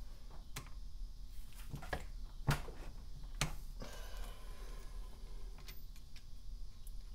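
A few separate metallic clicks and taps from a ratchet wrench and hands working the loosened cam sprocket bolts on a KTM 450 SX-F cylinder head, the sharpest about two and a half seconds in, with a brief rustle of handling about four seconds in.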